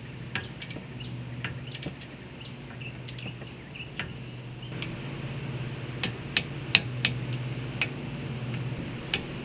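Torque wrench ratcheting in sharp metallic clicks as the brake caliper bolts are tightened: a few scattered clicks, then from about six seconds in a run of louder clicks a few per second. A steady low hum runs underneath.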